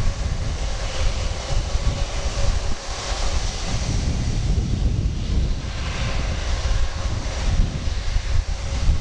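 Airbus A330-300's Rolls-Royce Trent 700 turbofans running at low taxi power: a steady jet hiss with a faint held tone over a fluctuating low rumble.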